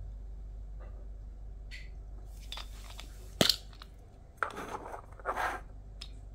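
Handling noises from a Vapman vaporizer and its black plastic case being taken apart by hand: a sharp click a little over three seconds in, then rubbing and scraping as the parts are pulled apart.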